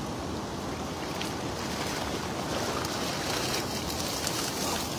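Water splashing and dripping as a cast net full of fish is hauled out of a river, growing louder about halfway through, over wind rumbling on the microphone.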